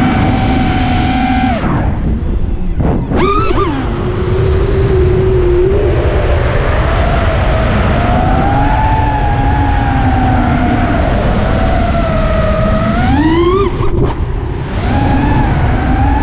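FPV quadcopter's brushless motors and propellers whining, heard from the drone's onboard camera over a low rush of air. The whine drops out briefly about two seconds in, surges up in pitch about three seconds in, wavers with the throttle through the middle, then rises again and breaks off shortly before the end.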